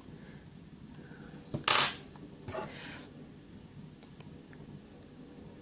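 Scissors snipping through dry orchid roots at the base of the plant: a sharp crunchy cut a little under two seconds in and a fainter one about a second later, with light rustling of the roots being handled.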